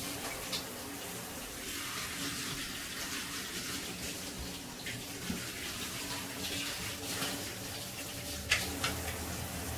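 Kitchen tap running steadily while hands are washed under it, water splashing into the sink, with a couple of sharp knocks near the end.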